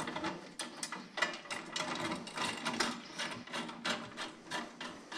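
Light metal clicking and rattling, several irregular clicks a second, from an aluminium intercooler and its mounting hardware being handled while a bolt is lined up by hand.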